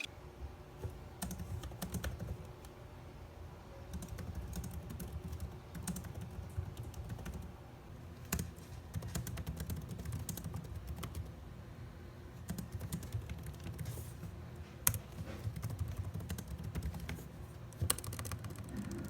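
Typing on a computer keyboard: quick, irregular key clicks that keep on throughout, over a low steady hum.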